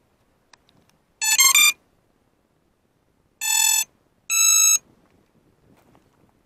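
FPV quadcopter motors beeping their start-up tones before take-off: a quick run of changing notes, then one lower beep and one higher beep.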